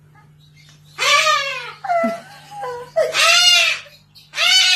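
Cockatoo calling loudly: from about a second in, a run of about five pitched calls, the longer ones rising then falling in pitch.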